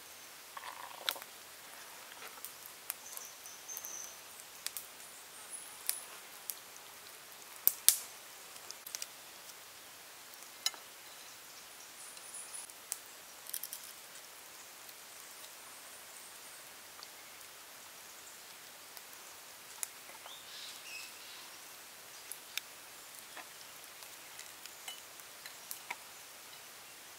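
Scattered light clicks, taps and rustles of hands handling raw fish and green onion stalks on a plastic plate and wooden table, the sharpest cluster about eight seconds in, over a steady outdoor background hiss with a few faint high chirps.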